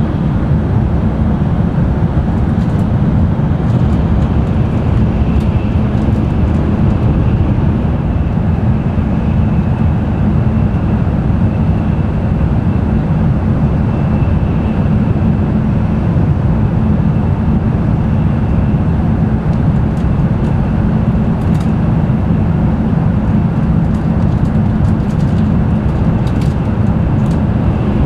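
Running noise inside an N700-series Tokaido Shinkansen car: a steady, loud rumble of wheels and air, with a faint steady high tone above it.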